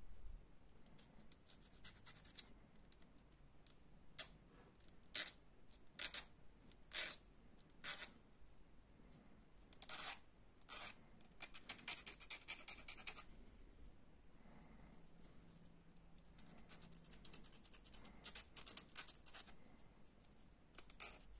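Small flat hand file rasping on a twisted copper wire ring in short single strokes, with a run of quick strokes midway and another near the end.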